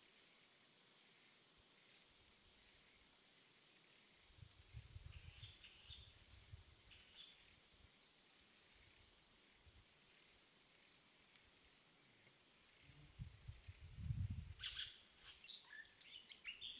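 Faint outdoor ambience: a steady high-pitched whine, a few soft low rumbles, and a cluster of short high chirps near the end.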